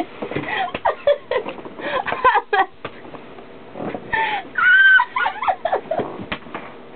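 A young woman laughing hard in fits of short breathy bursts and high giggles, with a longer, louder high-pitched squeal of laughter about halfway through.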